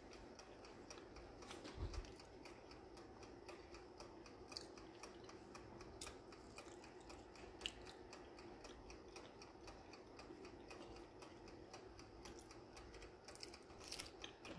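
Near silence: faint, even ticking at several ticks a second over a faint steady hum, with one soft thump about two seconds in.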